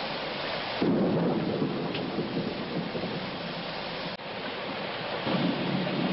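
Heavy rain pouring down in a steady hiss. A deeper rumble comes in suddenly about a second in, drops away around four seconds, and returns near the end.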